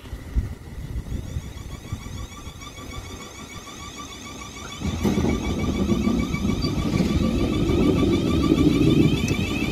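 Class 444 Desiro electric multiple unit pulling away, its traction equipment whining in repeated rising tones. A heavy rumble of wheels and motors comes in about five seconds in as the train passes close and grows louder.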